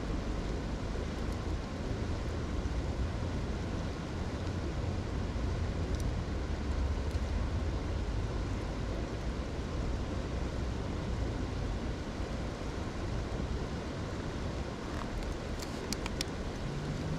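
River water flowing, a steady rushing noise with a low rumble underneath. A few faint clicks come about six seconds in and again near the end.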